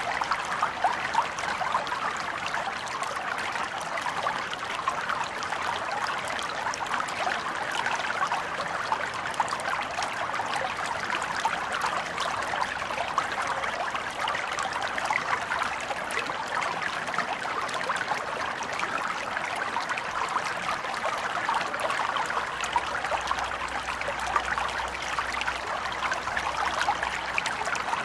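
Small stream flowing and trickling steadily over stones, a continuous babble of water with many small splashes.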